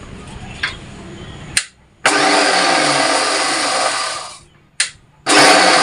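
Electric mixer grinder pulsed in short runs: a click, then a loud whirring burst of about two and a half seconds that winds down, another click, and a second burst starting near the end. The black, sesame-like khosla seeds are given light pulses so the husks crack off without the seeds being ground to an oily paste.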